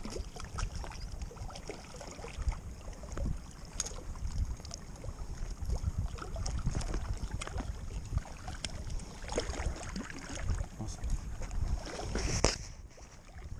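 Wind rumbling on the microphone over small waves lapping against shoreline rocks, with scattered light clicks from hands working pliers and line to unhook a caught barracuda. A louder rush of wind or water comes near the end.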